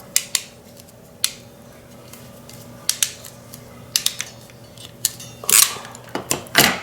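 Ratcheting crimping tool clicking as it is worked on a blue insulated wire terminal: about a dozen sharp metal clicks at irregular intervals, with a longer rasping burst about five and a half seconds in and a quick run of clicks near the end.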